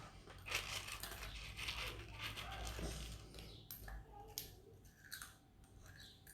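Plastic packet rustling and crinkling, with a few sharp clicks from about the middle on.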